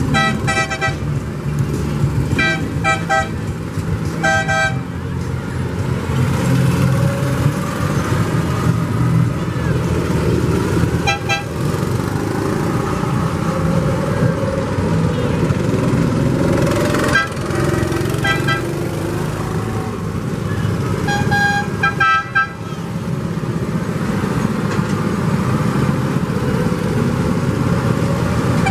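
Parade vehicles passing slowly with their engines running low, and short horn toots over them. There are several beeps in quick succession in the first few seconds, then a few more single or paired toots scattered through.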